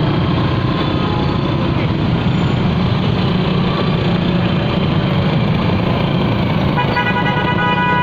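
Steady engine and road noise from a moving minibus in traffic. About seven seconds in, a vehicle horn starts honking and holds steady to the end.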